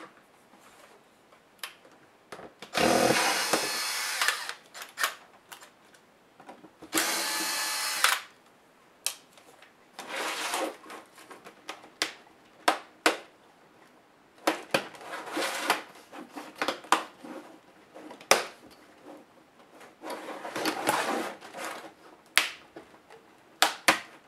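A small electric screwdriver whirs twice, for about a second and a half and then about a second. Sharp plastic clicks and short scrapes follow as the laptop screen bezel's clips are pried loose from the LCD panel by hand.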